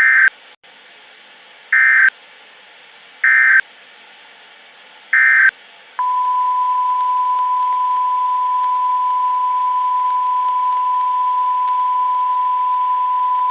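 Emergency Alert System end-of-message data bursts: four short buzzy bleeps about one and a half to two seconds apart. About six seconds in, a single steady high tone starts and holds.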